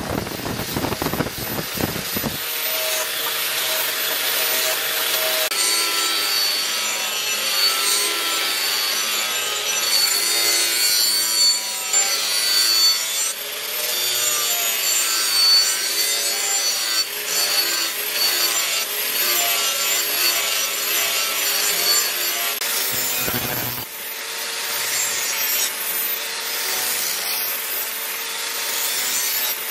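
Electric angle grinder with a sanding disc running against the machete, sanding the wooden handle and grinding the steel blade: a steady high motor whine over continuous abrasive rasping, with a brief dip about three-quarters of the way through.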